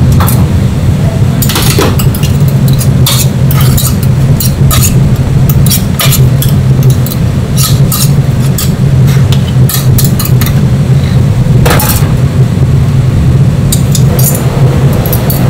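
Metal tongs and stainless-steel wire grill racks clinking and clattering irregularly while raw eel fillets are laid out and the racks are handled at an infrared grill, over a loud steady low machine hum.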